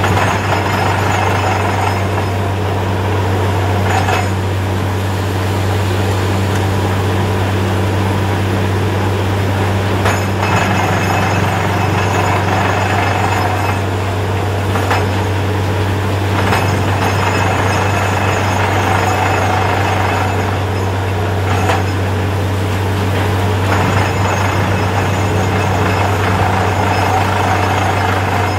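Truck-mounted borewell drilling rig running steadily: the engine and air compressor drone with a constant low hum, under a hiss of compressed air and flushing water from the borehole that swells and fades every few seconds. Now and then a brief sharp clink or knock cuts through.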